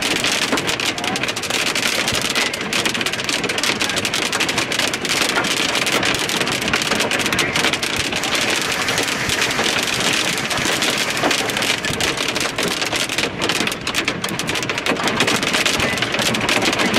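Hail and rain pelting down in a dense, steady clatter of countless small impacts. The hailstones are nickel- to quarter-sized and driven by strong wind.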